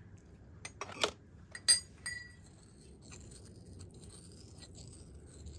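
Small brass mortar and pestle: a few sharp ringing metallic clinks in the first two seconds, then soft grinding as saffron threads are crushed.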